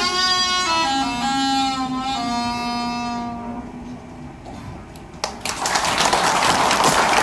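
A 36-pipe saenghwang (Korean free-reed mouth organ) plays sustained chords, stepping through a few closing notes before fading out about halfway through. About five seconds in, an audience breaks into applause.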